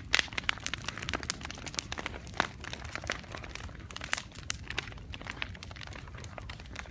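Large wood bonfire crackling: irregular sharp snaps over a low steady rumble.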